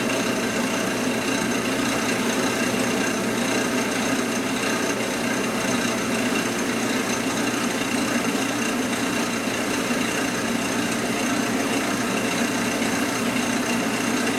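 Wood lathe running steadily with a canvas spinning on it: an even motor whir and air rush with a few steady tones over it.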